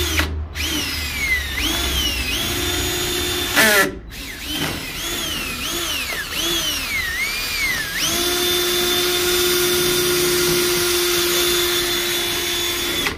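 Cordless drill boring out a vending machine's lock cylinder. Its motor whine keeps dipping in pitch and recovering as the bit bites into the lock, stopping briefly twice. From about eight seconds in it runs at a steady pitch.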